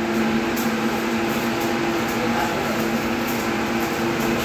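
Steady machine hum with two steady low tones over a noisy hiss, with a few faint light ticks.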